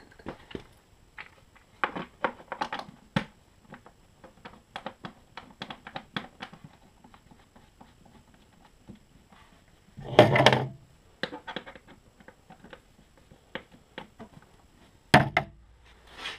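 Scattered light clicks and taps of gloved hands handling the gas fittings and hoses inside an open portable generator, with a louder, noisier knock-and-rustle about ten seconds in and another short knock near the end. The engine is not running.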